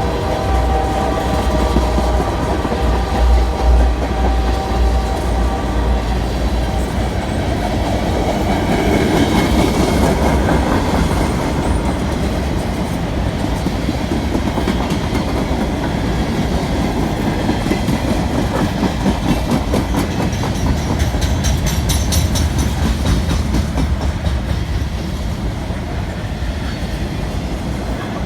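CN freight train rolling past: a steady deep rumble with the continuous rhythmic clatter of wheels over rail joints. The rumble is heaviest in the first few seconds and swells again about twenty seconds in.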